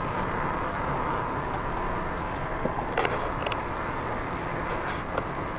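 Steady outdoor noise with wind buffeting the microphone, plus a few faint clicks about three seconds in and again near the end.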